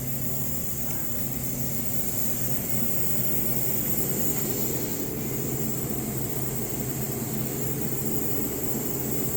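Steady hum and hiss of running machinery, even throughout, with no welding arc crackle.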